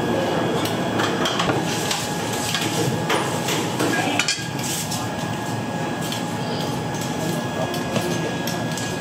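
Restaurant kitchen clatter: dishes, bowls and utensils clinking and knocking at irregular moments over a steady background of kitchen noise.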